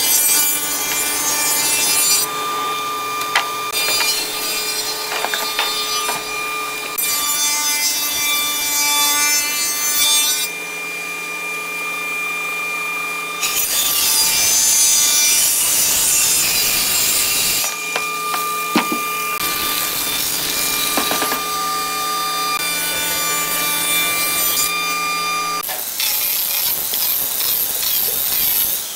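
Spindle moulder cutting along the edge of a wooden board as a power feeder drives it past the cutter: a steady machine tone under loud cutting noise. The sound changes abruptly every few seconds, and near the end a different handheld power tool runs.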